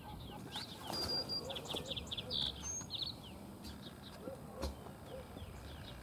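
Lark sparrow singing: one burst of song about a second in, lasting about two seconds, clear whistled notes running into fast trills and a buzzy note. Scattered short chirps sound around it, with low wavering calls in the background.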